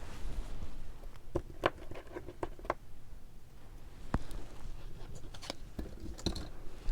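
Light clicks, taps and rustling of costume jewelry brooches being handled, set down and picked up, with a sharper tap about four seconds in.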